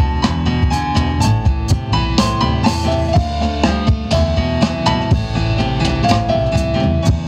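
Live instrumental band music: a cajon beating a steady rhythm, an upright double bass plucking a bass line, and an electronic keyboard playing a melody with long held notes. No singing.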